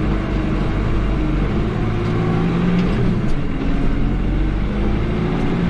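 New Holland TD75 tractor engine running, heard from inside the cab while it pulls a loaded grain trailer. Its pitch rises and falls a little around the middle.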